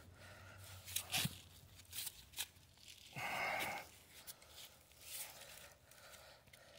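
A long-handled cable cutter being worked onto a heavy starter cable: a few light clicks, and a short rasp a little after three seconds in.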